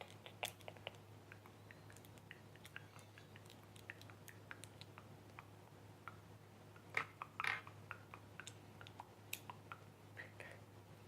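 Faint handling of small plastic LEGO pieces and their bag: scattered light clicks and crinkles, with a louder cluster about seven seconds in.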